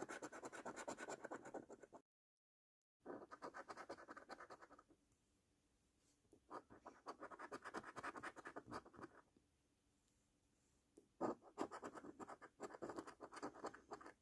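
Scratch-off coating being scraped from a National Lottery Golden Fortune scratchcard, in four bursts of quick, rapid scraping strokes with short pauses between them. There is a second of dead silence about two seconds in.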